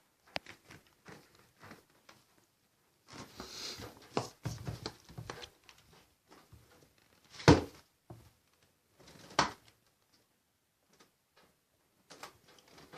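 Handling noises: scattered light clicks, a few seconds of rustling and scraping, then two sharp knocks about two seconds apart, the first the louder.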